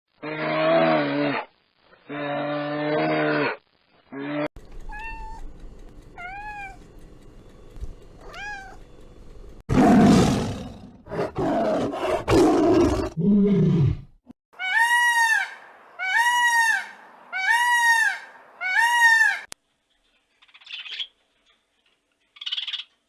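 A series of different animal calls: two long pitched calls, then faint short rising-and-falling calls, then loud rough calls around the middle, then five loud arched calls about a second apart, and faint short calls near the end.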